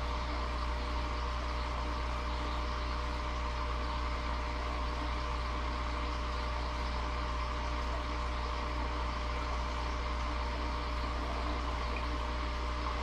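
Steady, unchanging electrical or mechanical hum with a constant background hiss.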